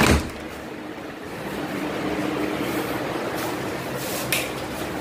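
A sharp thump, after which the low outdoor rumble drops away and a steady indoor hum with a faint tone remains; a single click about four seconds in.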